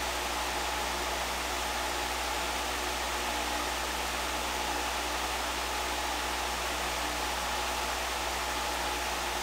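Steady hiss with a low hum and a faint steady tone underneath, unchanging throughout.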